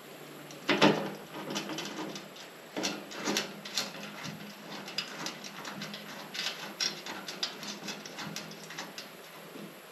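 Scattered light clicks and taps of small bolts being fitted by hand into the round metal flange on top of a fuel cell, with one louder click about a second in.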